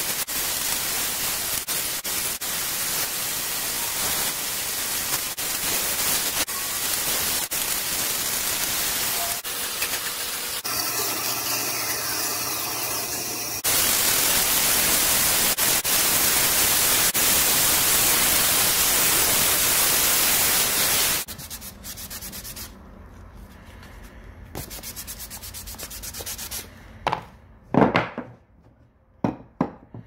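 Band saw cutting a thick wooden heart shape, followed about halfway through by a power sanding disc rubbing the wood, louder and steadier. The sanding stops and a few sharp wooden knocks follow near the end.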